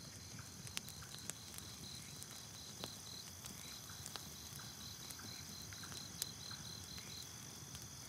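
Night insects calling: a high, pulsed chirping repeating several times a second that stops about seven seconds in, over a steady high insect hum. Faint scattered clicks of a campfire crackling.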